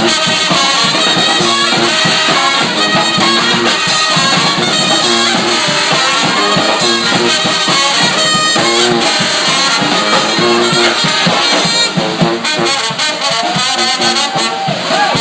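Brass street band playing live: trumpets and trombones playing together over a steady beat.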